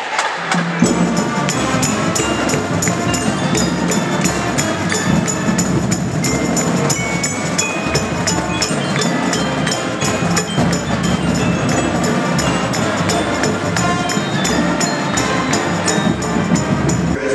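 High school pep band playing a brass tune: saxophones, trombones, trumpets and sousaphones over marching bass drums that keep a steady beat. The low brass comes in about a second in.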